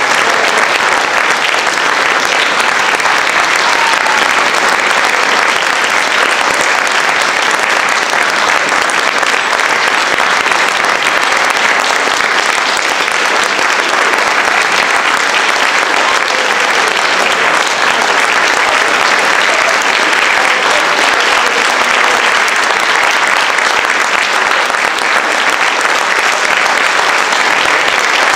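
An audience applauding steadily, with a dense, sustained clapping that neither builds nor fades.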